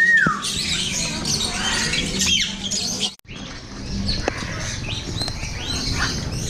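Caged parrots and other birds squawking and chirping, opening with one loud whistle that falls in pitch. The sound drops out for a moment about halfway through.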